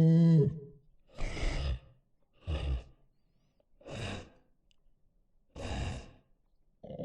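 Human voice performing a monster creature: a deep pitched moan ends about half a second in, followed by four heavy, breathy sighs or exhales spaced a second or more apart, and a new growl begins right at the end.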